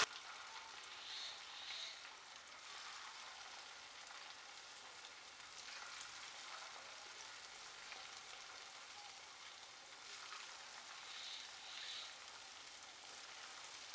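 Strands of freshly pressed poha murukku dough frying in hot oil in a pan, with a low, steady sizzle and crackle from the bubbling oil.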